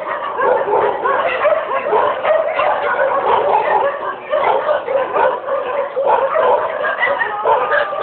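Many dogs yipping, whimpering and howling together in a dense, unbroken chorus of short rising and falling calls.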